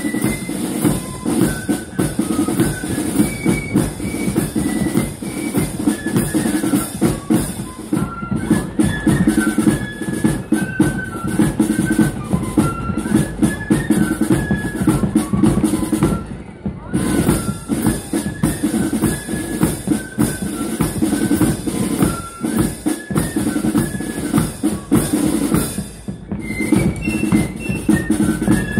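Marching band playing on parade: massed snare drums and a bass drum beating out a march, with a high stepping melody carried over the drums. The music breaks off briefly three times, about 8, 16 and 26 seconds in.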